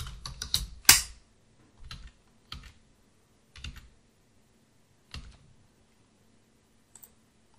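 Computer keyboard keystrokes: a quick run of key presses during the first second, the loudest about a second in, as a password is typed and entered. After that come five separate clicks spaced a second or so apart.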